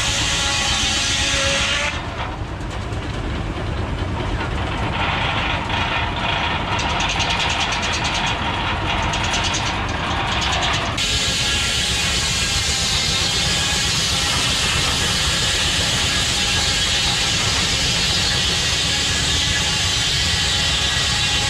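Belt-driven circular sawmill run by an antique J.I. Case steam traction engine: the steam engine chugs steadily under the singing whine of the saw blade. The high whine drops off about two seconds in and comes back full about eleven seconds in.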